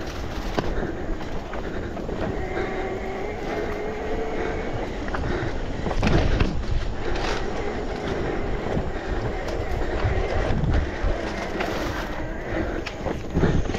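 Electric mountain bike ridden along a dirt trail: the tyres make a continuous rolling rumble, and the bike rattles and knocks over bumps, with harder knocks about six, seven and ten seconds in.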